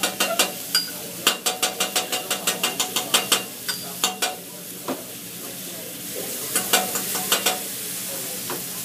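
Metal spatulas striking a hot teppanyaki griddle in quick even runs of about six clacks a second, over food sizzling on the griddle. The clacking stops about four seconds in and returns briefly near the end.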